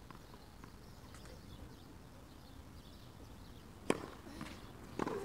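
Tennis ball struck by rackets: a sharp crack of the serve about four seconds in, a faint bounce, then a second crack of the return about a second later, over a quiet court.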